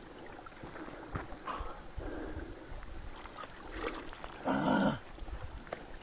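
A single short, loud animal call about four and a half seconds in, over quieter scattered sounds.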